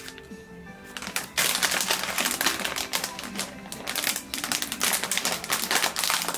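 A dense, fast run of crackling clicks that starts about a second in and stays loud, over background music with held tones.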